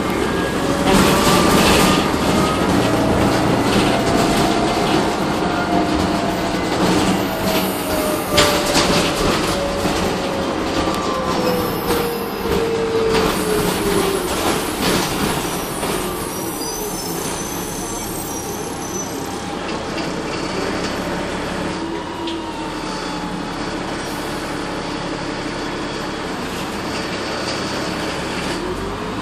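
Inside a city transit bus under way: its Voith automatic transmission whines, the pitch rising and then slowly falling with road speed, over the drivetrain's running noise. Clicks and rattles come from the cabin. The first half is louder, and it settles quieter later on.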